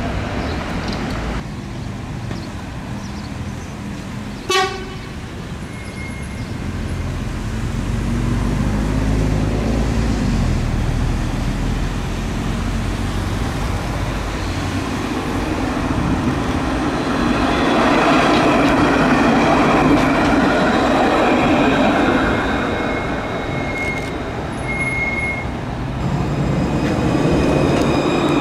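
Alstom Citadis tram drawing near and then running past close by, its noise swelling from about halfway through, with a high whine over the running noise. A single short horn toot comes about four and a half seconds in.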